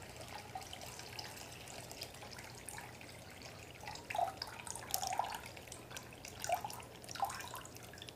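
Water poured slowly from a plastic measuring cup into a plastic bag, a soft trickle with a few louder splashes in the second half.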